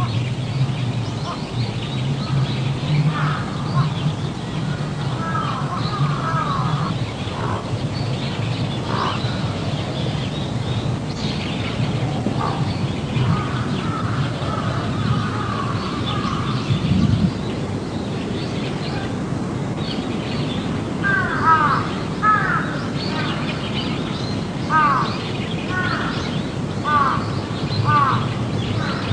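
Birds calling in the trees: short, repeated calls that come in a quick run of about one a second in the last third. A low steady hum sits under the first part.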